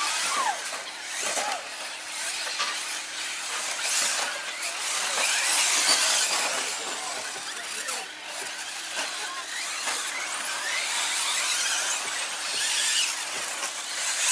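Several radio-controlled short course trucks with electric motors racing on a dirt track: the high whine of their motors rising and falling as they speed up and slow down, over a hiss of tyres on dirt.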